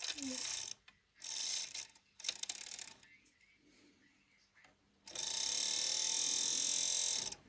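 Bachmann Blue Pullman model power car's motor running in three short bursts, then steadily for about two seconds near the end, while the model stays put: its drive shaft has fallen out, so the motor turns without driving the wheels.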